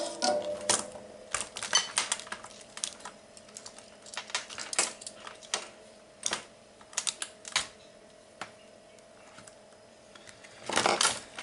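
Irregular light clicks and taps of small hand tools, tweezers and soldering iron, handled on a workbench during SMD soldering. A faint steady hum runs underneath.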